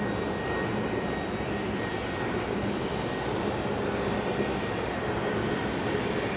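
A steady low drone of distant engines with a faint hum running through it, even in level throughout.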